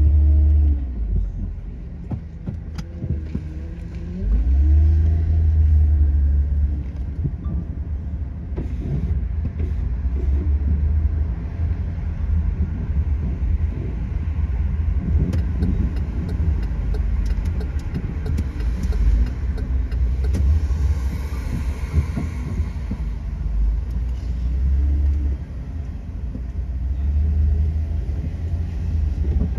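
A car driving on city streets: a steady, heavy low rumble of engine and road noise that swells and eases, with a run of light ticks about halfway through.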